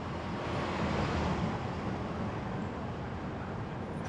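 Steady road noise of a car driving, the tyres running on the road surface.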